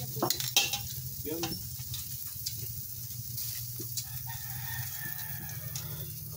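Meat sizzling on a grill with a steady hiss and a low hum, and a few sharp clicks in the first second. A rooster crows once, a held call of about two seconds, near the end.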